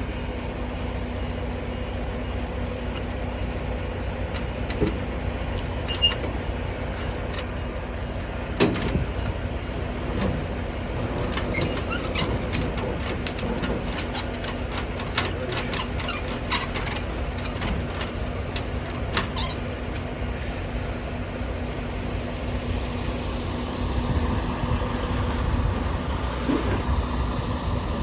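Semi-truck diesel engine running steadily with a low rumble and a steady hum, with scattered sharp clicks and knocks, thickest in the middle stretch.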